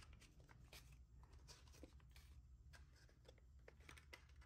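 Very faint rustling and light ticks of paper banknotes and a cash envelope being handled, over a low steady room hum.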